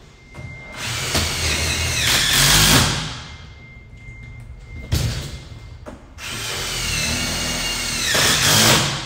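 DeWalt cordless driver running in two bursts of about two and a half seconds each, driving screws into a sheet-metal duct frame; each burst gets louder toward its end. A single knock falls between the two bursts.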